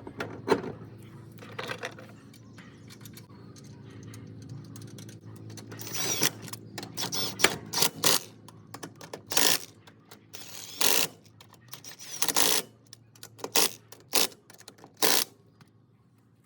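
Hand tools clicking and rattling on metal in irregular short bursts as a wheel is fitted back onto a Cub Cadet riding mower, over a faint steady hum.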